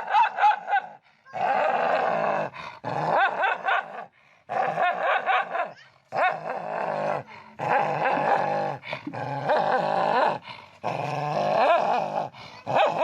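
A dog giving a string of long, wavering growl-whine vocalizations, each a second or two long with short pauses between, in the grumbling 'talking' manner of a vocal dog.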